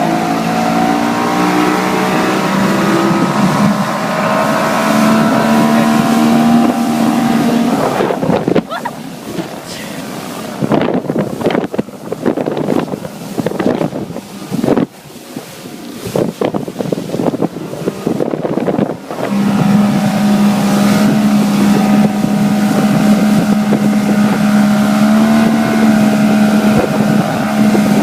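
Motorboat engine running at speed, a steady drone that climbs a little in pitch at first. For about ten seconds in the middle the drone breaks up into irregular surges and drop-outs among wind and water noise as the boat crosses choppy water, then it settles back to a steady run.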